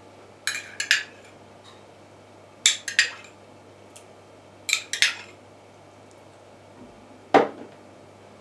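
Metal tablespoon clinking against china in three short clusters of taps, about two seconds apart, as spoonfuls of cold water are scooped from a mug and tipped into a bowl of butter and egg; one duller knock follows near the end.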